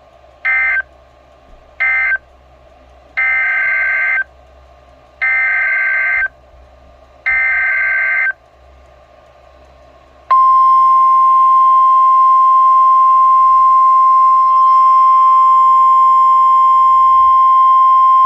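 Emergency Alert System SAME data bursts on NOAA Weather Radio. First come two short end-of-message bursts, then three longer, roughly one-second header bursts of warbling two-tone data. About ten seconds in a loud, steady single-tone weather radio attention alarm starts and holds, announcing the next warning.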